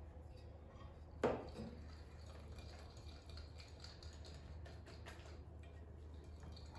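Kitchen dishes and utensils being handled: one sharp clink about a second in, then faint scattered clicks and taps.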